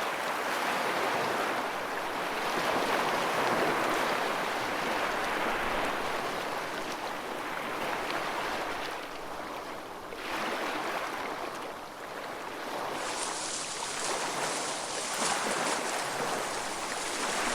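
Rushing ocean water, like surf or underwater current, swelling and easing every few seconds. A brighter hiss comes in about thirteen seconds in.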